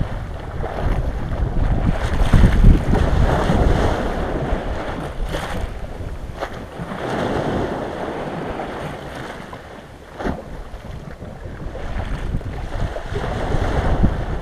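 Small sea waves washing in over an ice-crusted shore, swelling and easing about three times, with wind rumbling on the microphone.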